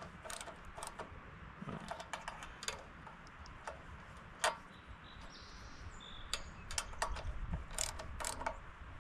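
Small hand ratchet clicking in short runs as the carburetor mounting nuts are tightened, with scattered metallic clicks that come more often in the second half.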